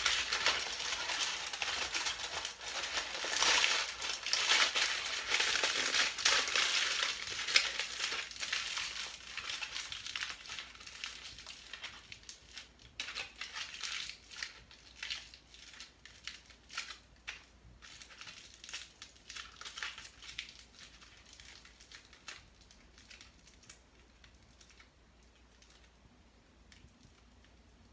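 Aluminium foil crinkling and crunching as it is squeezed and folded by hand: dense, continuous crackling for about the first dozen seconds, then thinning to scattered crackles that fade towards the end.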